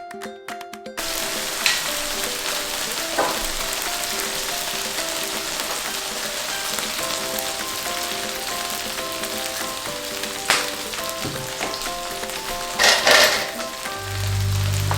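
Stir-fry sizzling steadily in oil in a hot pan, with a few sharp scrapes or clinks of the stirring utensil. A simple melody plays underneath.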